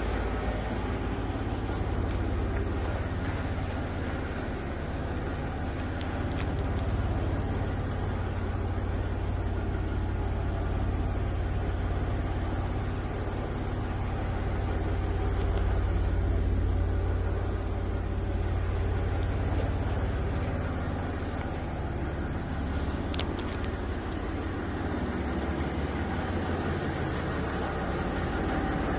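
2011 Jaguar XF's 3.0-litre V6 engine idling steadily, a constant low rumble.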